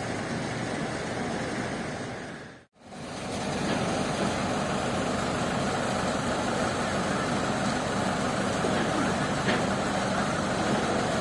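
Steady engine running, with a constant noise haze. The sound drops to silence for a moment about two and a half seconds in, then comes back.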